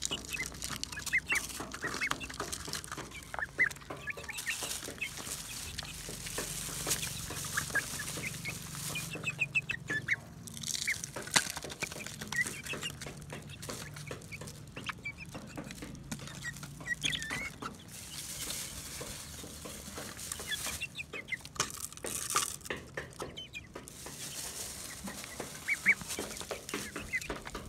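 Chickens clucking softly while chickens and ducks eat from plastic-bottle feeders, with many quick taps and clicks of beaks and bills against the plastic.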